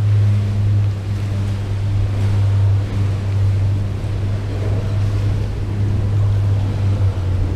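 Mercury outboard motor idling with a steady low hum, over the wash of water and wind on the microphone.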